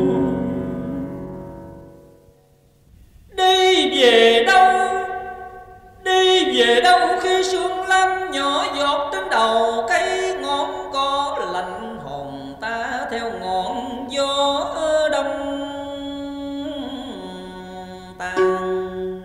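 Instrumental interlude of a traditional Vietnamese cải lương hồ quảng ensemble. After a note fades out and a second of near silence, plucked string notes play a melody, with some notes bent in pitch. Near the end a low note is held steadily.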